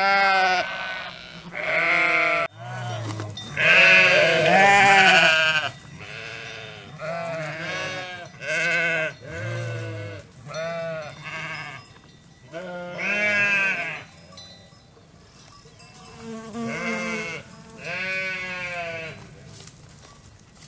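Sheep bleating, about a dozen quavering calls from several animals, some high and some deep. Several overlap loudly around four to five seconds in.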